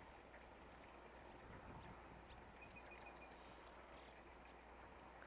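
Near silence: faint outdoor ambience with a thin, steady, high insect trill and a few faint short chirps.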